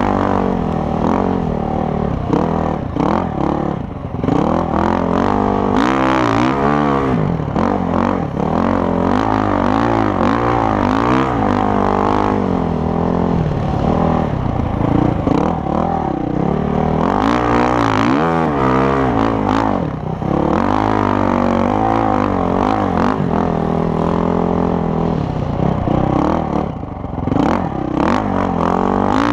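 Honda CRF450R's single-cylinder four-stroke engine revving up and down as the dirt bike rides through sand, with the pitch swinging sharply about six seconds in and again near the eighteen-second mark.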